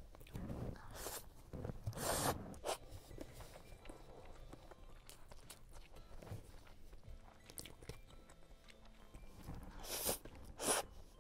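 Close-up eating sounds: chewing and biting on food, with short noisy bursts. The two loudest come near the end, as noodles are slurped in from chopsticks.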